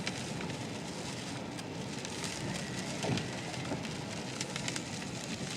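Rain pattering on a truck's roof and windshield: a steady hiss with many small, sharp drop taps scattered through it.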